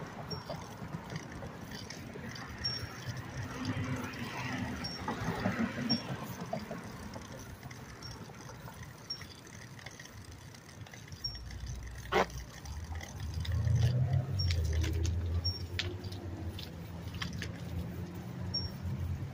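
Outdoor ride noise with a motor vehicle passing low and rumbling through the second half. There is one sharp click about twelve seconds in, and faint short high ticks recur every second or so.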